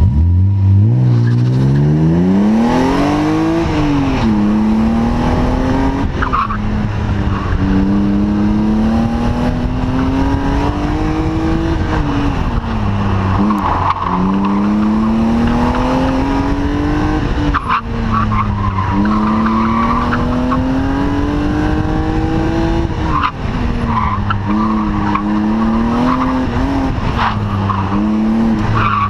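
1998 BMW E36 M3's straight-six engine launching hard, its revs climbing steeply for about three and a half seconds before an upshift. The revs then rise and fall again and again as the car accelerates and brakes between turns, with tires squealing through the corners.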